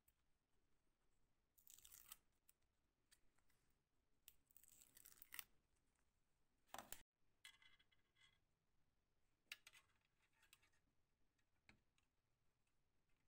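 Faint rustling and ripping of paper tape backing being peeled off tape strips on a battery pack. It comes in a few short bursts, with a sharper rip about seven seconds in, followed by lighter crinkling.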